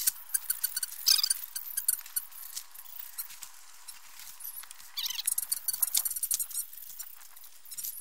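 Crackling and rustling of dry soil, potato plants and a plastic tarp as a fabric grow bag is tipped out and the plants are pulled up by their roots. There are dense clicks throughout and a few short high squeaky chirps, about a second in and again about five seconds in.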